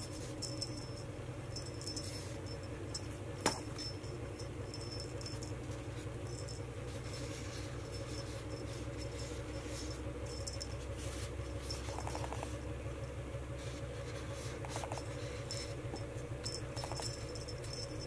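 Light rustling and jingling of a feather wand toy being waved and batted during play, over a steady low hum; one sharp click about three and a half seconds in.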